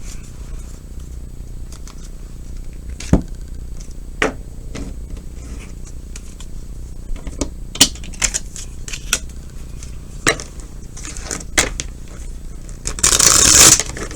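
Tarot cards being handled on a table: scattered light taps and clicks as cards are picked up and laid down, then a brief rustling burst of shuffling near the end.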